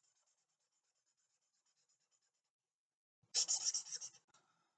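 Pen scribbling on paper in quick back-and-forth strokes while colouring in a drawing. It is faint at first and fades out, then a louder burst of scribbling about three seconds in lasts about a second.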